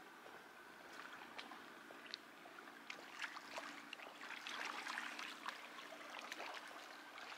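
Lake water lapping faintly against a stone shore in small, irregular splashes that grow busier in the middle, over a faint low steady hum.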